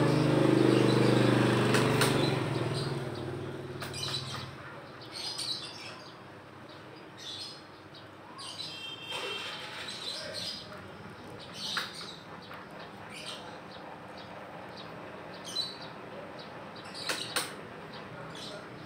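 A sulcata tortoise eating pellets, its beak giving off scattered short crunches and clicks. A steady droning hum fades away over the first four seconds or so, and a few bird chirps are heard in the background.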